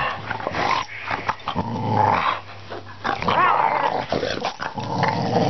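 A dog growling in rough play, with short scuffling thumps as it tussles.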